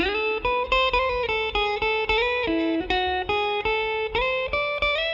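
Electric guitar through an amplifier playing quickly picked chords, about four a second. A faint amplifier buzz is still left underneath after de-hum processing.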